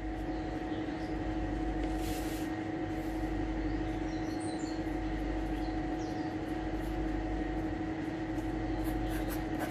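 A pen writing on paper in a few short scratchy strokes, over a steady machine hum with a low held tone.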